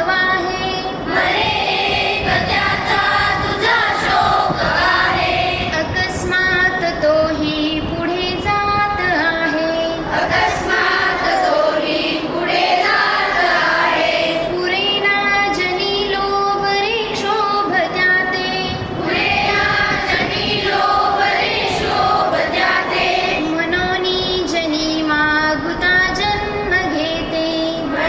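A group of children singing together in chorus, a sung melody of held notes that step up and down.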